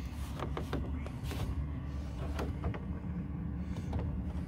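Plastic trim cover being pressed and fitted into its groove on a van door pillar: a few light clicks and handling knocks over a steady low rumble.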